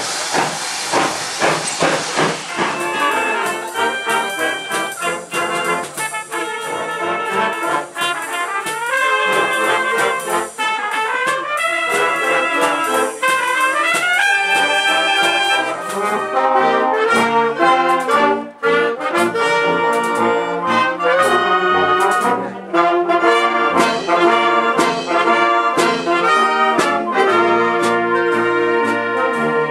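Steam hissing for the first two seconds or so, then a brass band of cornets and trombones playing a tune in loud, sustained chords.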